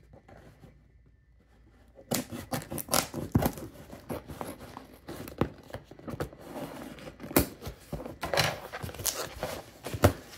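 Packaging being handled and torn open by hand: irregular rustling, ripping and clicks that start about two seconds in and carry on unevenly.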